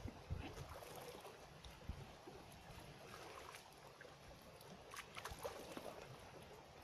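Faint wind and small waves lapping against the lake bank, with a few soft clicks about two and five seconds in.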